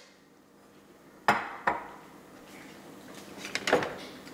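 Dry shell pasta sitting in hot oil in a pot, frying with a faint sizzle. Sharp kitchenware knocks cut through it: two about a second in, and a short cluster near the end.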